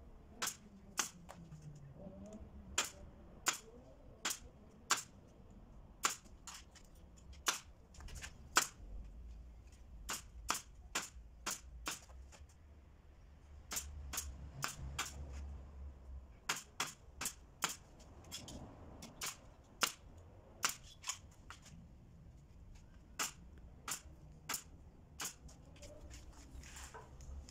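Pneumatic nail gun firing again and again, each shot a sharp snap, unevenly spaced and sometimes two or three in quick succession, as wooden strips are nailed into the inner frame of a hollow-core door.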